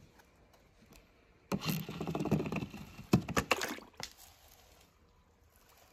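A toy monster truck clatters along the ramp and splashes into a tub of water filled with pom-poms and plastic balls. There is a noisy splash and clatter lasting about two seconds, starting about a second and a half in, with a few sharp knocks near its end.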